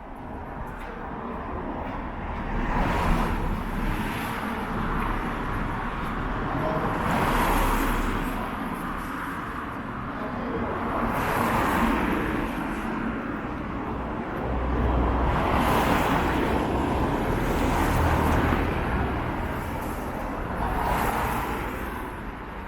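Road traffic: cars passing one after another, each swelling and fading every few seconds, over a steady low rumble of wind on the microphone.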